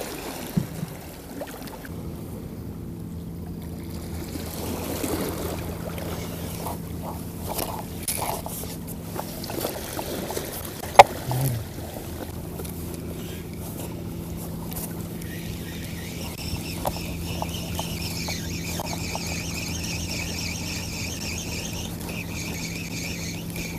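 Fishing boat's engine running steadily with a low hum, with scattered knocks and one sharp click about eleven seconds in. From about sixteen seconds in, a higher whine joins and runs until just before the end.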